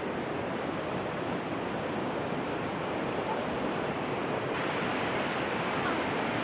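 Steady rushing water, a continuous even roar of a waterfall or fast stream.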